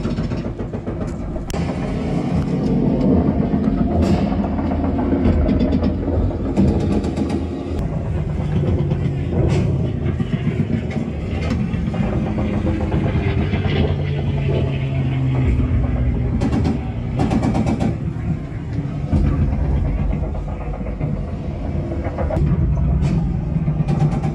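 Low, steady engine-like rumble that shifts in pitch, with scattered sharp knocks.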